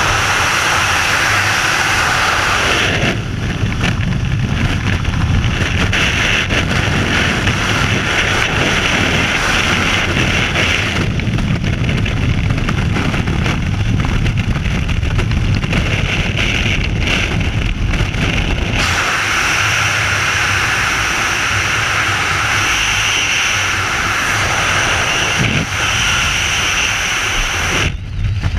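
Loud freefall wind rushing over a helmet-mounted GoPro camera's microphone, its tone changing every several seconds. Near the end the rush cuts away abruptly as the parachute opens.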